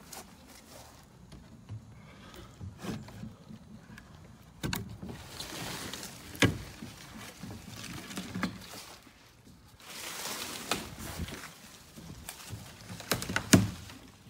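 A weathered wooden garage door being unlatched and pulled open by hand: several sharp knocks and clanks, with stretches of scraping and rattling between them and the loudest knock near the end.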